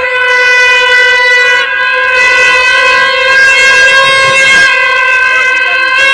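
A loud horn-like tone held at one steady pitch without a break.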